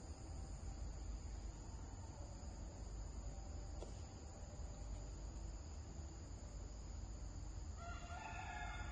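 Steady high-pitched insect drone over faint background noise, with one pitched, crow-like call lasting about a second near the end.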